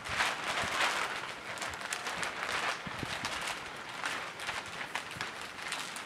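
Thin clear plastic footprint sheet crinkling and crackling as it is shaken out and spread by hand, in bursts of rustle with many small sharp crackles, loudest in the first second.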